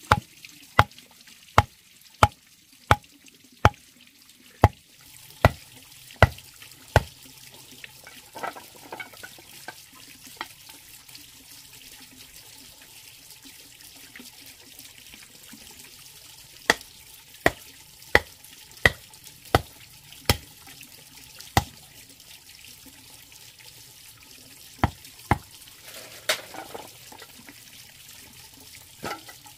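Sharp knocks of a machete's back hammering wooden stakes into the soil, a little faster than one a second: a run of about ten blows, a pause, then about seven more and a few scattered ones near the end.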